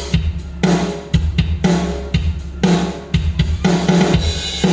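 Drum backing track at 120 BPM in 4/4: a steady kick-and-snare groove with hi-hat, the snare hitting about once a second.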